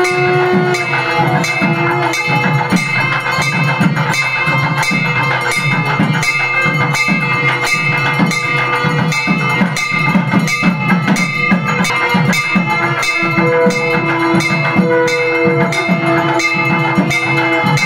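Temple puja music: a fast, steady drumbeat with bells ringing, and long held pitched notes from a wind instrument that come and go.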